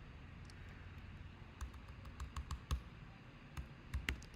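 Keystrokes on a computer keyboard during code editing: sharp key clicks in a quick run about halfway through, with a few more near the end.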